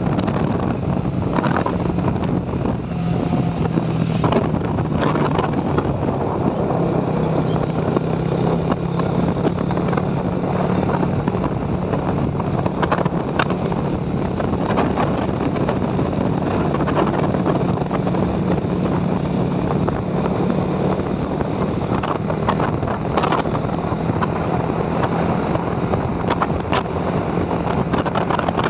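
Motorcycle engine running at a steady note while cruising, with wind rushing over the handlebar-mounted phone's microphone.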